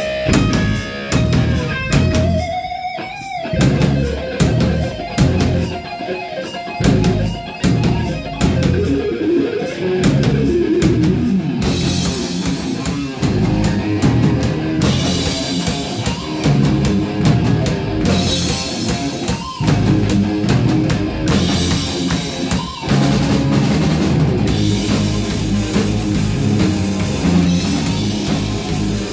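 Live rock band playing an instrumental heavy-metal opening on electric guitar, bass guitar and drum kit, with a sliding guitar note about three seconds in. The full band comes in harder about twelve seconds in.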